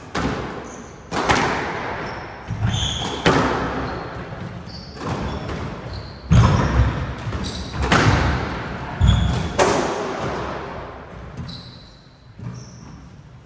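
Squash rally: the racket striking the ball and the ball hitting the walls, each a sharp crack with a ringing echo off the court walls, about one every one to two seconds, with short squeaks of court shoes on the wooden floor between them. The hits stop about ten seconds in.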